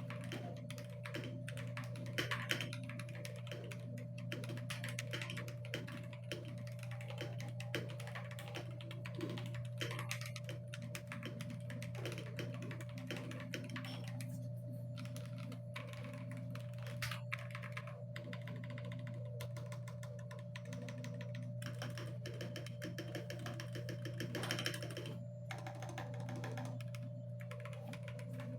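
Typing on an Akko 5075B Plus gasket-mount mechanical keyboard in stock form, with Akko CS Silver linear switches on an aluminium plate and Cherry-profile keycaps. The keystrokes run in a quick, dense stream with a few short pauses near the end.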